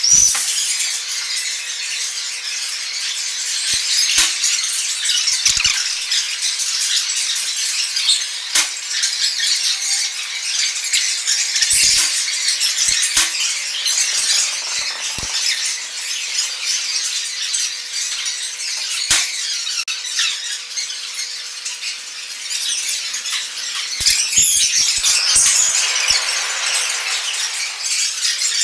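Shards of broken drinking glass crackling and scraping as they are handled, with scattered sharp clicks, over a faint steady hum.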